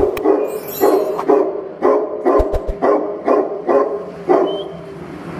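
Tibetan mastiff barking repeatedly, about three barks a second in a steady rhythm.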